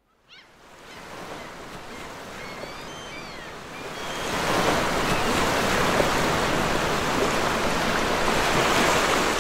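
Sea surf washing over rocks, a steady rushing that fades in and grows louder about four seconds in. A few faint, short, high bird calls come around two to three seconds in.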